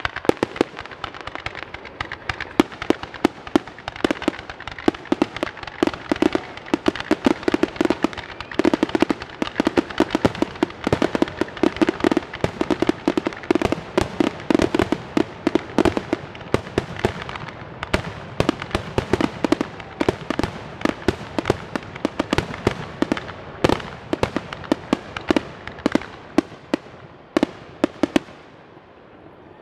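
Aerial fireworks shells bursting in a rapid, nearly continuous barrage of bangs and crackles, the finale of a fireworks show. The barrage thins out and dies away in the last couple of seconds.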